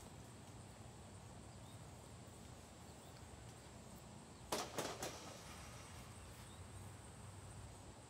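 Two sharp knocks about half a second apart, a little past the middle, over faint steady background noise.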